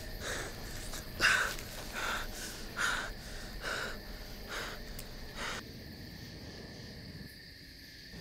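A man breathing hard and ragged, about seven harsh breaths a little under a second apart, the loudest about a second in; the breathing stops about five and a half seconds in, leaving a faint steady hiss.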